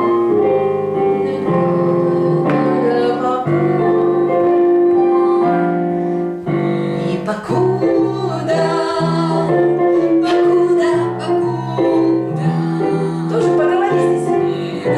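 A woman singing a Russian pop (estrada) song with piano accompaniment, holding long notes with vibrato.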